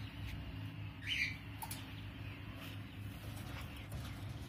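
A single short, high chirping bird call about a second in, over a steady low hum, with a few faint clicks.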